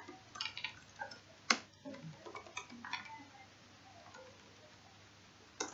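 Computer keyboard keystrokes: a run of irregular, light clicks for about the first three seconds, thinning out and stopping after that.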